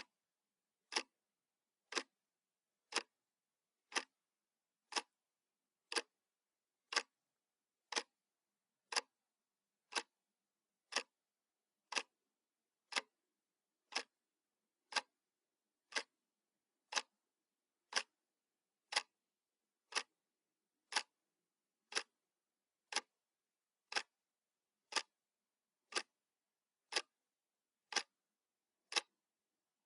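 Clock ticking sound effect: one sharp tick each second, evenly spaced, counting down a timer.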